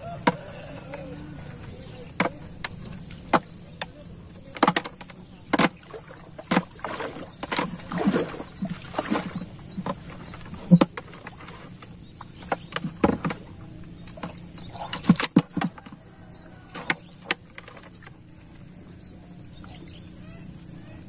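Fishing gill net being hauled by hand into a small boat: water splashing and dripping off the net, with irregular knocks and clatters against the boat's hull. It is busiest through the middle and dies down near the end.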